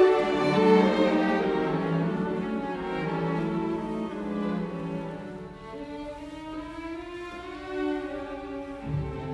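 Background music of slow, long-held notes on bowed strings.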